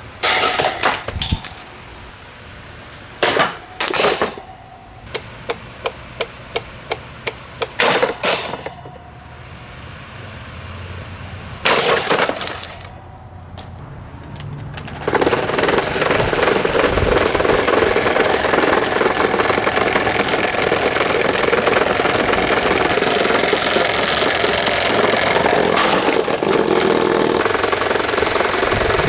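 SMC table fan being wrecked: several sudden loud cracking crashes and a quick run of clicks, about four a second. About halfway through, a continuous loud rattling clatter with a steady underlying whine begins.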